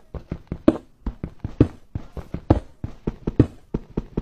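A steady run of sharp knocks or thuds, about three a second.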